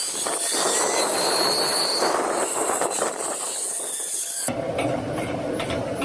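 Zipline ride: a steady rushing hiss of the trolley running along the cable, with a faint rising whine near the start. About four and a half seconds in it cuts to a lower, rumbling sound.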